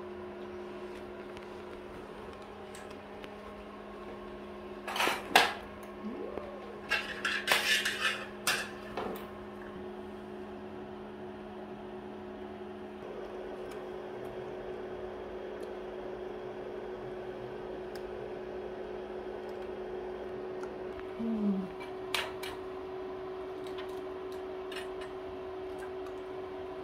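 Porcelain bowls and a metal wok clinking and clattering in short bursts, about five seconds in, again around seven to nine seconds, and once more near twenty-two seconds, over a steady electric hum.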